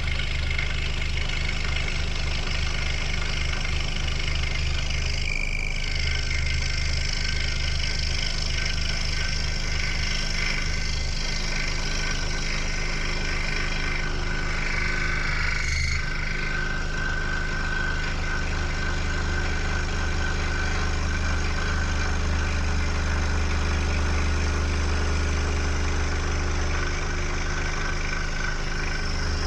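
Electric scroll saw running steadily: an even low motor hum with vibration, with a brief break about sixteen seconds in.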